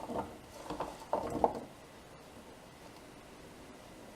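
A few light knocks and clatters in the first second and a half as ingredients are tipped into a cooking pot, then quiet room tone.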